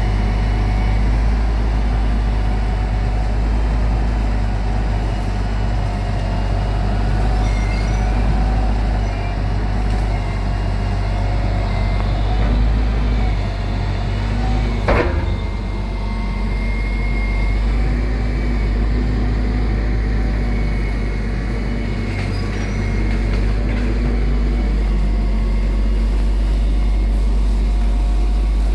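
Steady low rumble of a vehicle in motion, with one sharp click about halfway through.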